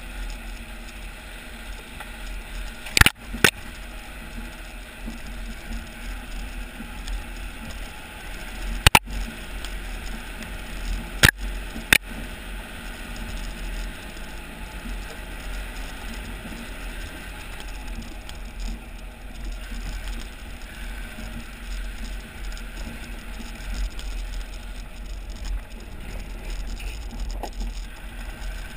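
Land Rover Discovery tyres rolling slowly over a loose gravel and stone lane: a steady low rumble and patter of tyres on stones. Five sharp clicks stand out, two about three seconds in and three more between nine and twelve seconds.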